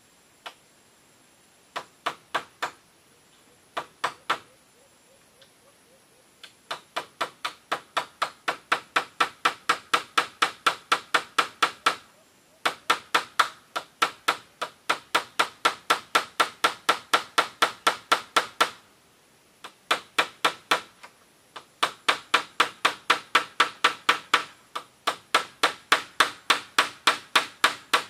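Small hammer driving a nail through split-bamboo roofing into the timber frame: a few single taps, then long runs of quick, even strikes, about four a second, broken by short pauses.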